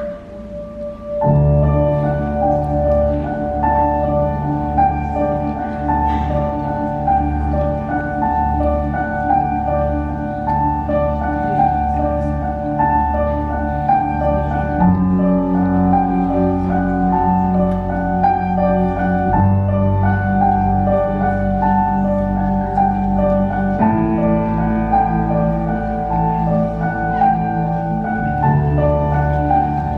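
Recorded instrumental music for the dance, starting about a second in: a repeating high melody over held low chords that change every few seconds.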